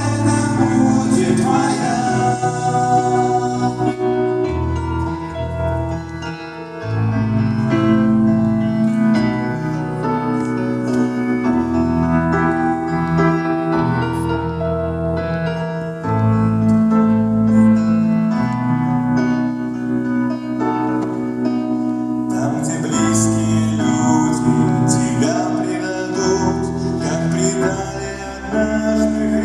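Live worship music: a Korg electronic keyboard playing chords over held electric bass guitar notes, with a voice singing the melody.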